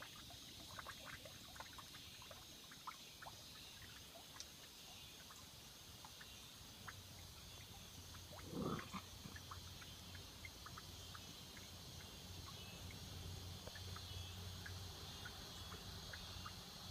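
Faint, steady high-pitched drone of cicadas, with many scattered small ticks and one short, low animal-like call a little past halfway.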